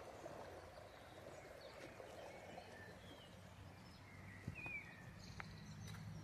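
Faint rush of a river in flood, with a few short bird chirps.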